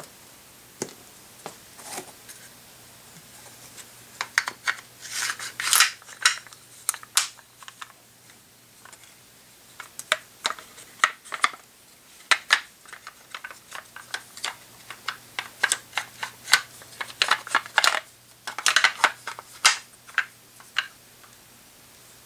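Hard plastic clicking, knocking and scraping as the two halves of a polymer vise block for an AR-15 upper receiver are handled and pulled apart. The sounds come in irregular clusters of sharp clicks, busiest about a third of the way in and again near the end.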